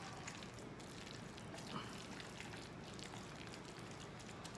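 Quiet, wet stirring and mashing of beans and rice in a saucepan with a silicone utensil, a steady soft squish with faint scattered clicks and scrapes of the utensil against the pan.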